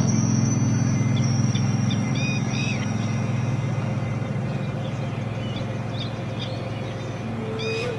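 Small birds chirping in short calls, a few times, over a steady low hum that slowly fades.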